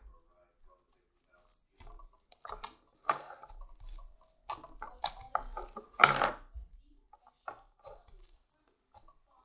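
Mint-green slime full of foam beads being kneaded and pressed by hand on a tabletop, giving irregular sticky crackles and pops. The loudest comes about six seconds in.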